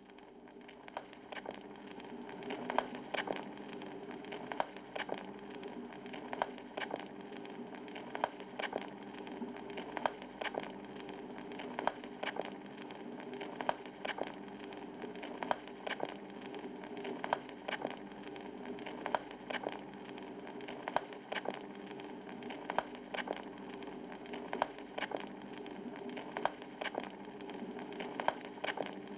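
Vinyl record surface noise as the stylus tracks the groove before the music starts: a steady hiss and crackle with sharp pops, the loudest pop coming back about every two seconds, over a faint steady hum.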